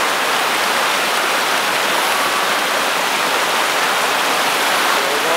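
Shallow rocky forest stream flowing over stones and a small cascade: a steady, even rush of water.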